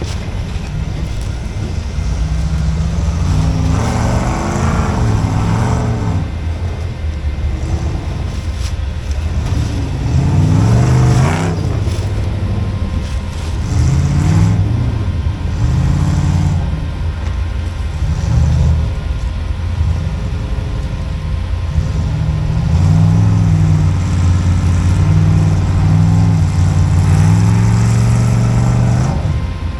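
Off-road rock-crawler engine revving hard in repeated surges, pitch climbing and dropping every few seconds as the rig works its way up a rock climb; the revving is most sustained near the end.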